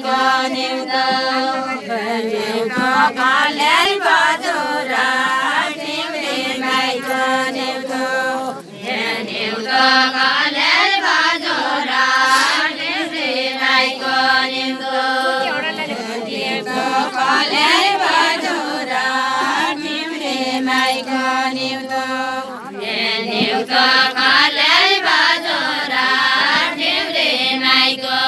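Group of women singing a deuda song unaccompanied, in unison, in a chant-like melody of repeating sung phrases.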